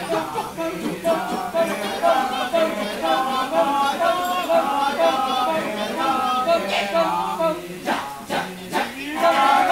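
Balinese kecak chorus: many male voices chanting together in held, pitched tones, with no instruments. About eight seconds in the chant breaks into a few short, sharp bursts before the voices come back in.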